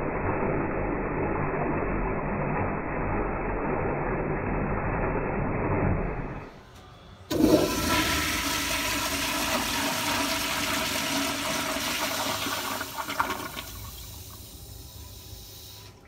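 A 1971 American Standard Madera siphon-jet bowl on a flush valve at building line pressure, flushing with a loud rush of water. A dull, muffled rush breaks off about six seconds in. After a short lull a second, brighter rush starts suddenly, with a few quick gurgles near the end, then it tapers off.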